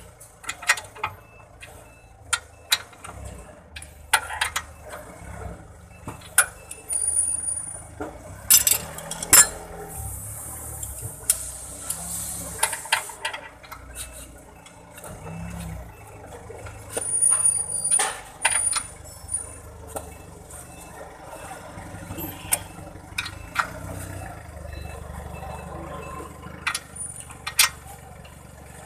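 Wrench and steel suspension parts clinking and knocking irregularly as bolts on a truck's upper control arm are worked, with a few short ringing metallic tones.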